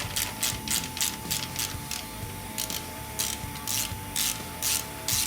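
Hand ratchet wrench clicking in repeated short strokes, about two a second with a brief pause about two seconds in, as the nut on the alternator's charge-cable terminal is turned.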